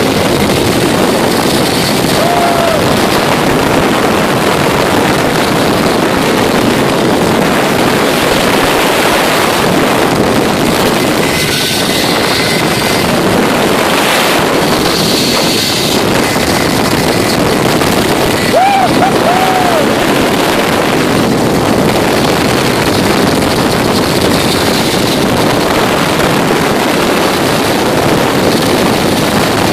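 A zip line trolley whirring along its steel cable at speed, with wind rushing over the microphone, as a steady loud noise. A couple of short rising-and-falling tones rise above it twice.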